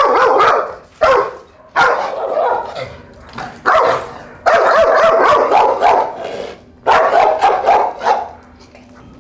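A leash-reactive dog barking at a person in about six long bursts, each starting suddenly, as an aggressive on-leash display.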